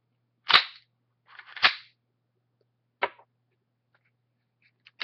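Glock pistol being unloaded by hand: sharp metallic clicks and clacks as it is cleared of its chambered round. Four separate sounds: the loudest about half a second in, a longer sliding clack about a second later, then single clicks about three seconds in and at the very end.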